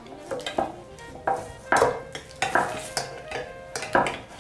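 Metal utensils and serving ware clinking and scraping: a spoon against a stainless-steel bowl and small copper serving pots set down on a wooden board. It comes as a string of sharp separate clinks, roughly two a second, some ringing briefly.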